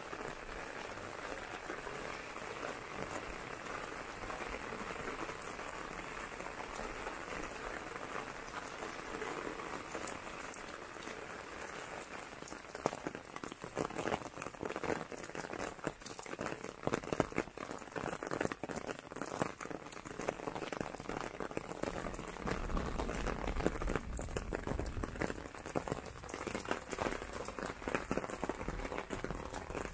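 Steady rain falling on a paved road and the surrounding foliage, an even hiss; from about halfway through, sharper individual drops tick close by. A low rumble joins in near the end.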